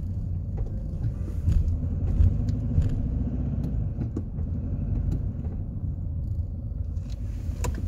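Low, steady rumble of a car being driven, heard from inside the cabin, with a few light clicks.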